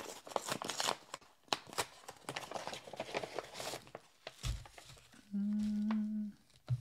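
Mail packaging being opened: a quick run of crinkling, rustling and tearing of paper and wrapping. About five seconds in, a short hummed "mm" from a man's voice, held for about a second.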